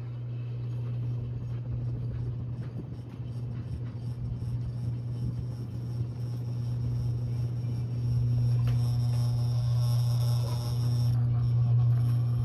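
Mainstays Tri-mount ceiling fan running, its motor giving a steady low hum with a rumbling air noise that grows louder about eight seconds in.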